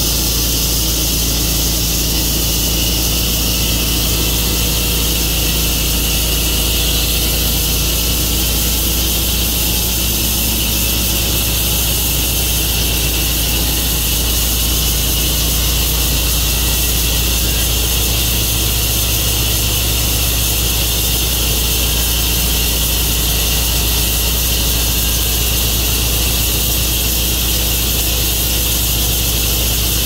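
Sawmill running steadily under power while sawing a catalpa log: a constant low engine drone with a steady hiss above it, unchanging throughout.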